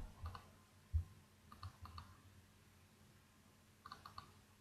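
Faint, scattered clicks of a computer mouse and keyboard, some in quick pairs and a cluster of three near the end, with a soft low thump about a second in.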